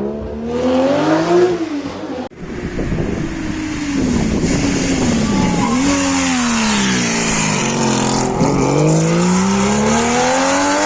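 Historic rally cars running hard on a stage, their engine notes rising under acceleration and dropping off when the throttle lifts, several times over. About two seconds in, an abrupt cut switches to another car.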